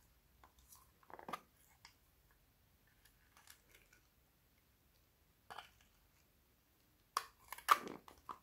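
Small hinged plastic case of rubber loom bands being opened and handled: scattered light clicks and rustles, with a cluster of louder plastic clicks and knocks near the end.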